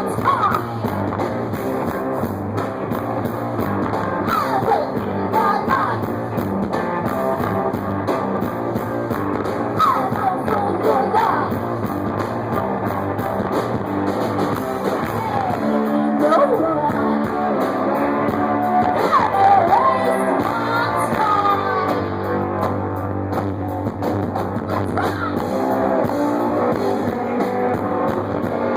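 Live punk-blues rock band playing loudly: electric guitar with sung vocals.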